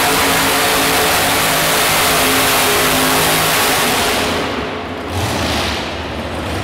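Modified pulling tractor's supercharged racing engine running at full throttle under load. About four seconds in, the throttle is cut as the pull ends, and the engine drops to a low, rough idle.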